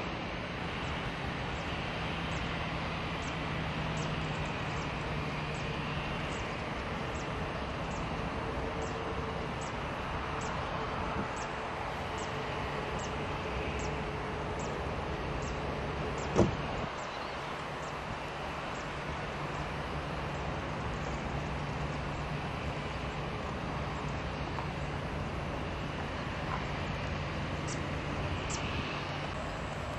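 Airbus A319-111's CFM56 turbofan engines running at idle thrust while it taxis: a steady engine noise with a low hum. A single sharp knock a little past halfway.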